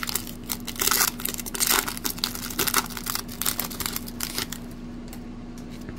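Foil wrapper of a 1992 Fleer Ultra baseball card pack crinkling and tearing as it is pulled open by hand, the crackling dying down about four and a half seconds in. A faint steady hum sits underneath.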